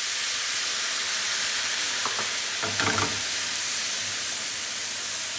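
Stock sizzling with a steady hiss as it is poured into a hot frying pan of orzo and vegetables, then stirred with a spatula, with a short louder stirring sound about three seconds in.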